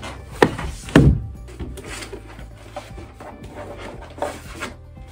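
Paper files and folders being handled on a desk: two sharp knocks within the first second, then softer scattered rustling and light taps as papers are leafed through.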